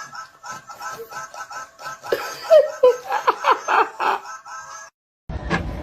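Music with laughter over it, made of short repeated chirps about four a second and then louder laughing. The sound cuts out abruptly near the end, and a low rumble with sharp clicks begins.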